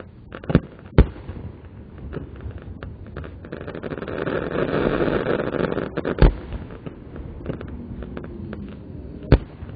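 Fireworks display in a slowed-down recording: sharp bangs of exploding shells twice in the first second, once again about six seconds in and once near the end. Between them a rush of noise swells up and dies away.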